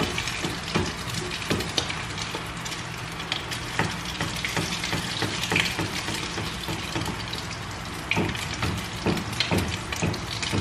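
An egg-and-ground-meat omelette (tortang giniling) sizzling in oil in a frying pan. A spatula scrapes and taps against the pan at irregular moments.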